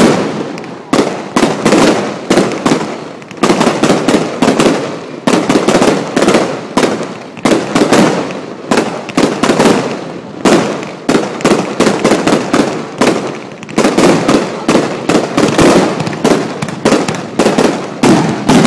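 Aerial fireworks bursting in rapid succession, several loud bangs a second, each with a short rumbling echo.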